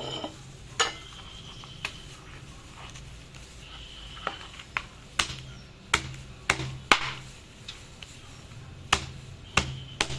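Knife chopping through roast lechon pork belly onto a cutting board: about a dozen sharp knocks at uneven intervals, bunched closer together around the middle.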